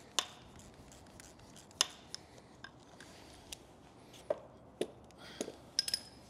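Scattered sharp clicks and clinks of hand tools and metal parts while an Alfa Romeo engine is being stripped, about ten separate knocks, with a quick cluster near the end.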